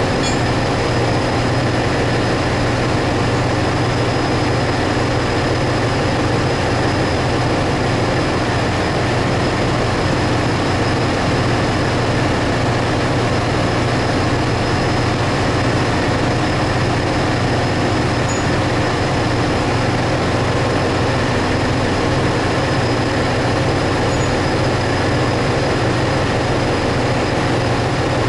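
Ship's engine-room machinery running: a loud, steady low drone with a thin, constant high whine above it.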